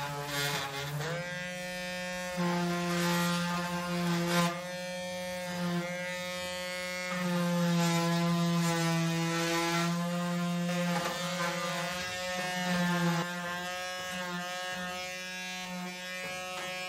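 Black+Decker electric detail sander running as it is pressed against a rusty steel stove plate: a steady motor buzz with scratchy sanding noise. Its pitch steps up about a second in, and the sanding rasp swells and fades as the pad is worked across the metal to take rust off.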